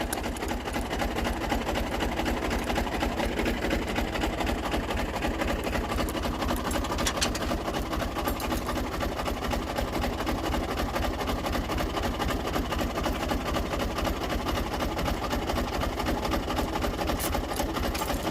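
Fiat tractor's diesel engine idling steadily, with an even, fast low throb.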